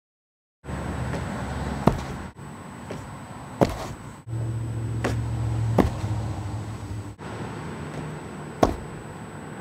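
About five sharp thuds of a person jumping and landing on the ground during front-flip attempts off a picnic table, over steady outdoor background noise with a low hum. The background cuts abruptly several times between takes.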